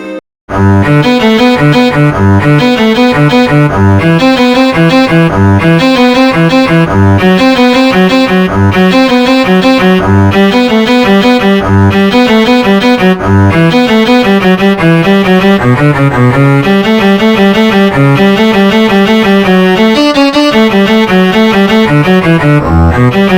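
Samsung SGH-D113 polyphonic ringtone: a fast, evenly paced melody with string-like voices over a bass line, starting right after a brief silence.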